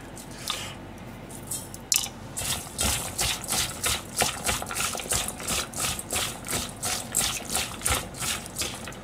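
Sliced lotus root being tossed and rubbed by hand with salt in a stainless steel bowl: rhythmic wet rustling of the slices against the bowl, about three strokes a second, starting about two seconds in.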